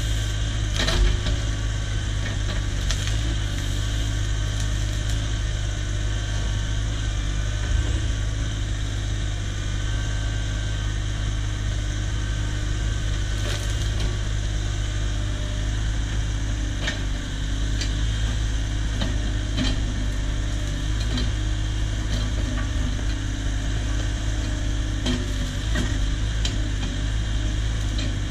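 Cat 304 mini excavator's diesel engine running steadily under work, with occasional sharp knocks.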